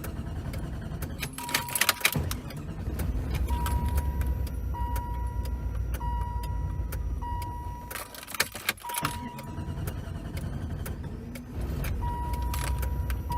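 A 1994 Jeep Grand Cherokee's 5.2-litre V8 catching and running crappy in two spells of a few seconds, dying between them, with clunks around each restart and a repeating electronic chime. The rough running is a sign that the owner suspects bad fuel is still in the bottom of the tank.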